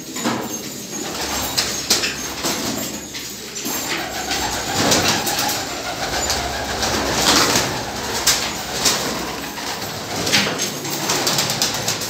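Domestic pigeons cooing, with wings flapping and several sharp wing claps in between, in a small echoing room.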